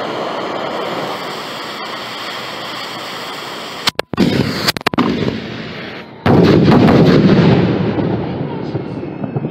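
A lit fuse on a rack of 1.75-inch titanium salute shells hisses steadily. About four seconds in the mortars fire with several sharp cracks. A couple of seconds later a very loud booming report sets in and rolls away, fading slowly.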